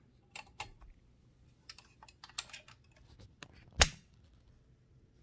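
Small metallic clicks from the backspace mechanism of a 1925 Mignon 4 index typewriter as it is worked by hand, then one loud, sharp click just under four seconds in.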